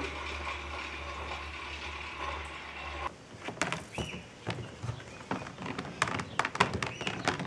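A magnetic stir plate spinning a yeast starter, a steady low hum. About three seconds in it cuts off and gives way to irregular splashing and spattering as sanitizer solution is poured out of a plastic fermenting bucket onto grass.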